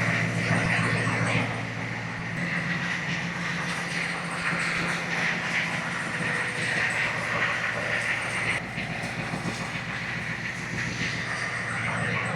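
HMMWV (Humvee) V8 diesel engine idling steadily after a cold start, a little louder for the first second and a half, then settling to an even idle.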